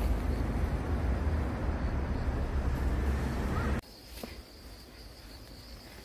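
A steady low outdoor rumble cuts off abruptly about four seconds in. What follows is much quieter open-air ambience with a steady high-pitched insect buzz.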